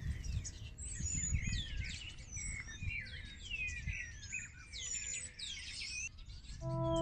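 Small birds chirping, with many quick overlapping whistles that slide up and down. Near the end a steady ringing chord of several held tones comes in.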